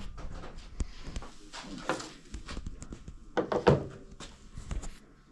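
Handling noise: a scatter of knocks, taps and thunks as the camera is moved and set down on a wooden tabletop, with a louder cluster of knocks a little past the halfway point.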